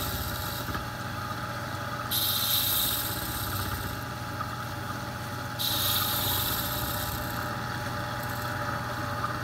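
Small lathe motor running with a steady low hum while an abrasive rasps against the spinning leather cue tip in three hissing spells, shaping the tip's dome: at the start, about two seconds in and near six seconds in.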